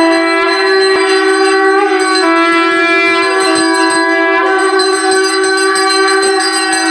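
Devotional music: a wind instrument playing long held notes that change pitch every couple of seconds, with bells ringing.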